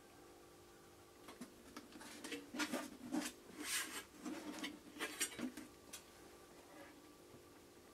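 Handling noise as a metal-cased power inverter is turned over in the hands, with scattered knocks, clicks and rustles, mostly in the middle stretch. A faint steady hum runs underneath.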